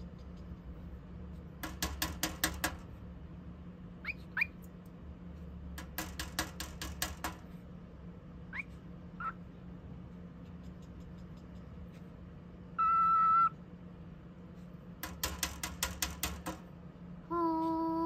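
Male cockatiel chattering: three bursts of fast clicking, several short rising chirps, and a brief steady whistle about two-thirds of the way through.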